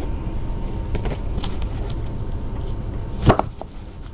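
A steady low rumble, then one sharp knock a little past three seconds in as the felt basket bumps against the camera.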